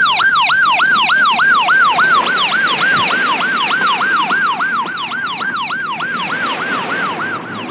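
Police car siren in a fast yelp, its pitch swooping up and down about four times a second and slowly fading.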